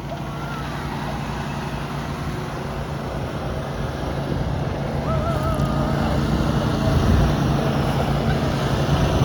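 Small lawn mower engines running steadily, growing gradually louder as they come closer.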